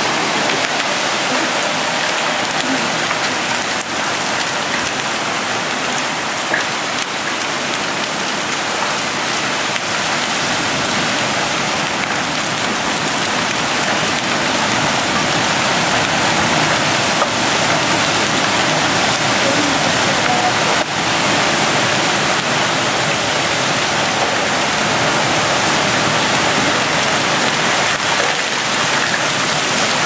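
Heavy wind-driven rain in a severe thunderstorm with 80–100 mph winds: a loud, steady rush of rain and wind.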